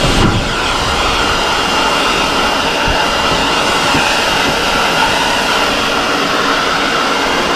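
A motor-driven tool or machine running steadily, a continuous whirring noise with a thin high whine held on one pitch.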